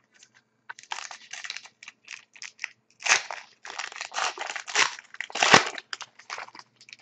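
A 2011-12 Panini Contenders hockey card pack's wrapper being torn open and crumpled by hand: a run of irregular crinkling and tearing, loudest about three seconds in and again about five and a half seconds in.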